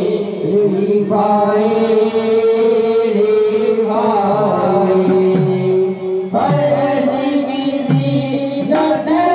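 Devotional qalaam, a Sufi praise song, sung with long held, wavering notes over musical accompaniment.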